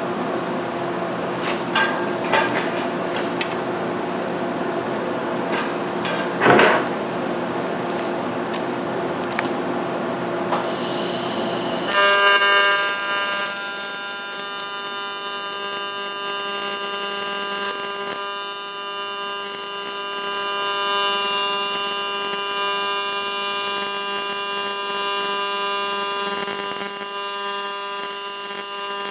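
A steady hum with a few light clicks, then about twelve seconds in a welding arc strikes on the aluminum transmission case and carries on as a loud, steady buzz, the sound of AC TIG welding aluminum.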